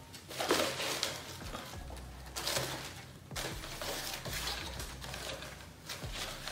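Rustling and crinkling as a pair of children's sneakers is handled, in three or four bursts, the loudest about half a second in.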